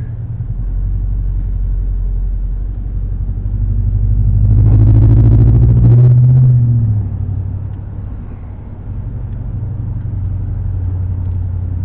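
Engine and road noise of a moving car heard from inside the cabin, with a low steady hum. It swells to its loudest about five or six seconds in as the engine note rises, then eases off.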